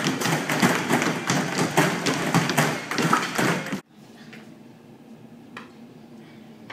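A rapid patter of taps and thumps, like feet working on aerobic step platforms, mixed with voices. It cuts off abruptly about four seconds in to quiet room tone with one faint tap.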